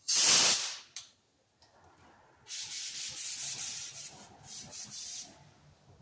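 Compressed-air spray gun hissing in bursts: a short loud burst at the start, then a longer spray about two and a half seconds in, broken briefly near the end. Its uneven spraying is what the owner traces to water in the air compressor.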